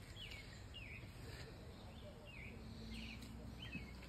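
A songbird singing a run of short, slurred chirps, about two a second, over a faint outdoor background hum.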